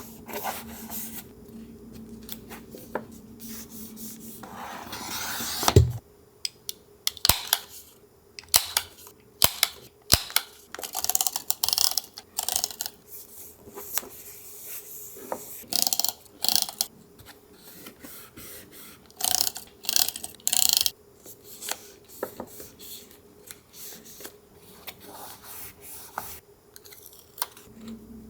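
Collage paper-craft handling: paper rubbed, scraped and cut in many short, separate scratchy strokes. It is preceded by a few seconds of steady low hum with a hiss that swells and ends in a sharp knock.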